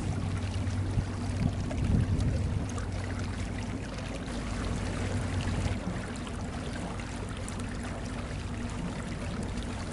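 Boat engine running at low speed, a steady low hum, with water trickling and splashing at the hull. The lowest part of the hum eases about six seconds in.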